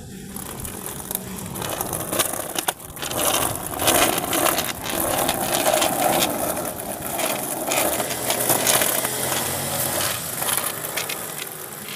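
Skateboard wheels rolling on rough concrete: a gritty rumble dotted with many small clicks, loudest in the middle.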